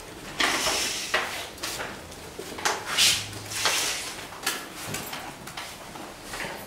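Chalk scraping on a blackboard in several separate strokes, as lines are ruled along a long ruler held against the board.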